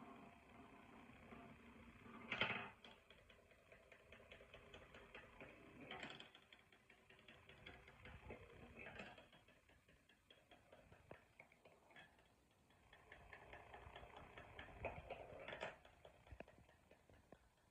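Marbles rolling and rattling along a marble run: a quiet, continuous patter of small clicks, broken by a few louder clacks, the loudest about two and a half seconds in.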